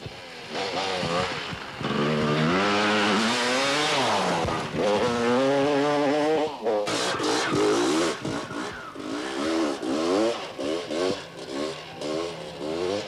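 Off-road motorcycle engines revving hard on a dirt climb, the pitch repeatedly climbing and falling with the throttle, in quick wavers toward the end.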